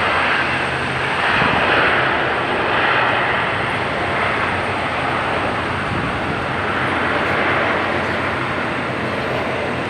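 Twin turboprop engines of an ANA Bombardier Dash 8-400 airliner running loud as it lands, a dense rushing drone that swells about two seconds in and eases slightly toward the end.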